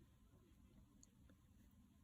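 Near silence: room tone with a couple of faint clicks about a second in.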